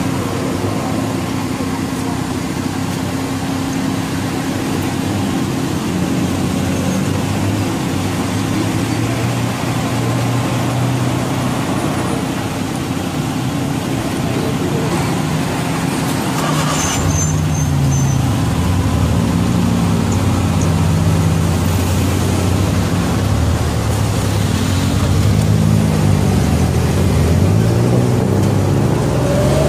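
Tuk tuk engine running as the three-wheeler drives through city traffic, its pitch rising and falling several times near the end as it revs up and shifts.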